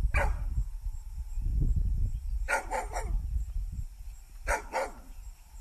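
Dog barking: a single bark, then two quick runs of about three barks each, roughly two seconds apart, over a low rumble.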